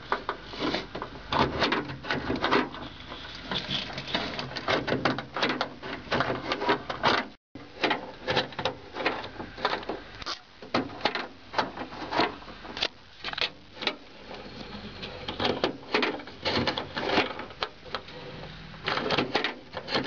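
Rapid, irregular clicking and clattering from handling around an opened pickup door and its lock mechanism, breaking off briefly about seven seconds in.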